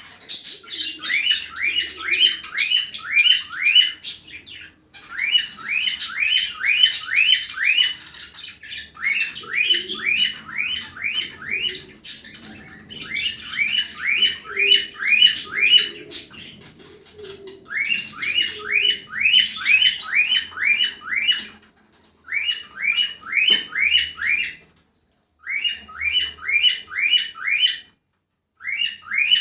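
Cockatiel calling: a rapid series of short, rising squawking chirps, about three a second, in bouts of a few seconds broken by short pauses.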